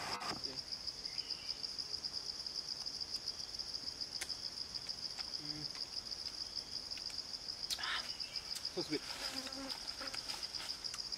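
A steady, high-pitched forest insect chorus: a continuous fast trill, with a few faint clicks and a short brief noise about eight seconds in.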